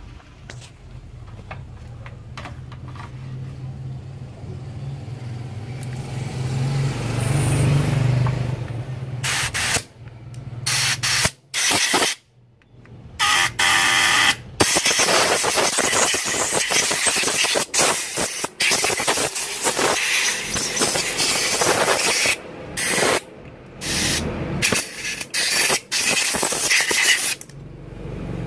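Compressed air from an air-gun nozzle blown through the body of a Suzuki Satria F vacuum carburetor to dry its passages after carb cleaner. A low hum and a softer hiss come first, then from about a third of the way in loud hissing blasts, cut off and restarted many times with short pauses.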